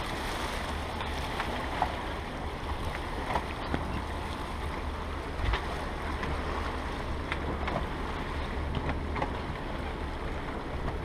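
Wind buffeting the microphone on the deck of a sailing catamaran running downwind, over the rush of water along the hulls, with a few faint ticks scattered through.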